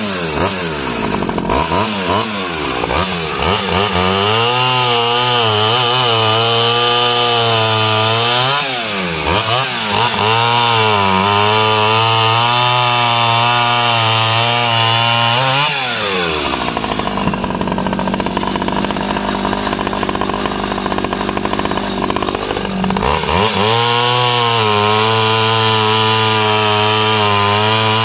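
Stihl 009 36cc two-stroke top-handle chainsaw revving and cutting a log, its engine pitch dipping and rising as the chain bites. About halfway through it drops back to a steady idle for several seconds, then revs up and cuts again.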